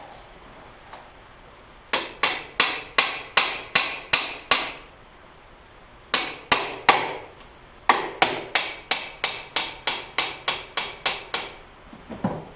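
A hard hammer tapping on a metal part of a lathe's countershaft drive assembly, where a soft hammer would be the right tool. The blows come in three runs of quick, light, ringing taps, about three to four a second: eight, then three, then about fourteen.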